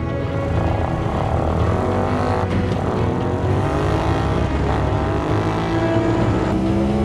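Honda Mean Mower's 1000 cc V-twin engine, taken from a VTR1000 FireStorm motorcycle, accelerating hard on a speed run. Its pitch rises in several runs, dropping back and climbing again about every two seconds as it shifts up through the gears.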